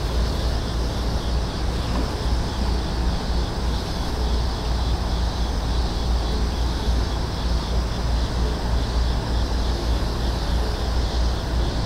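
Wind buffeting the microphone outdoors: a steady low rumble that keeps wavering in level, without pause.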